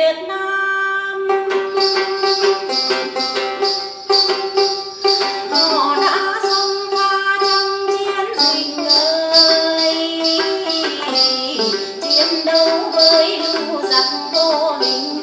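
Tày đàn tính (long-necked gourd lute) plucked in a Then folk melody, over a steady jingling rhythm like small bells or a tambourine at about three beats a second.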